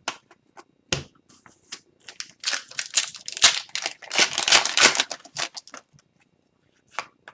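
Upper Deck hockey trading cards being handled and sorted by hand: scattered clicks and snaps of card stock, then a few seconds of dense rustling and sliding near the middle.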